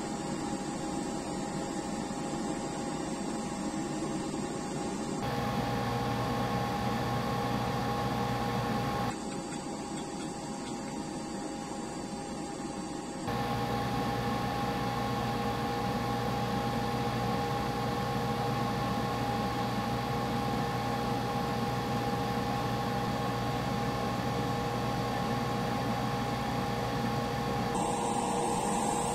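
Airbrush compressor and spray-booth fan running with a steady hum and hiss while the airbrush sprays paint. The level steps abruptly up or down a few times.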